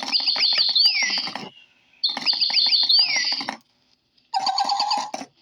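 Pet birds singing: two matching phrases of quick, high chirps that each end in a swooping whistle, then a shorter burst of chirps.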